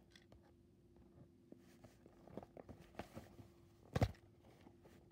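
Hands handling a cardboard toy box: faint rustles and light taps, with one sharp knock about four seconds in.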